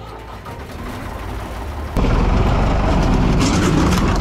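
A 1980s Ford 3000 tractor's engine running, then turning abruptly louder and heavier about two seconds in.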